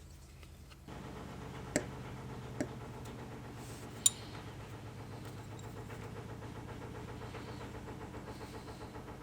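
A small electric motor switching on about a second in and running steadily with an even hum, with three sharp clicks over it.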